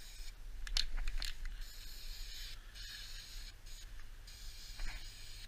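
Aerosol spray-paint can hissing in bursts as black paint is sprayed onto a plastic duck decoy, with a few sharp clicks about a second in.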